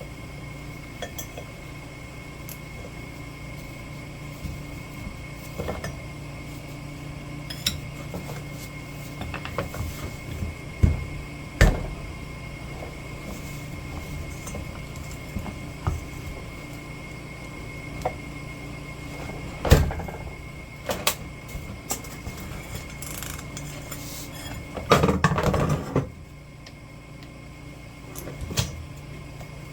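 Metal hand tools and motor parts clinking and knocking against each other, with scattered sharp knocks and about a second of rattling clatter near the end, over a steady shop hum.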